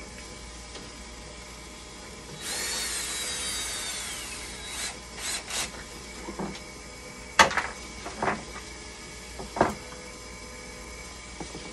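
Hand-handling of tools and parts: a scraping rub with a falling squeal for about two seconds, then a run of sharp knocks and clacks, the loudest about halfway through, over a faint steady hum.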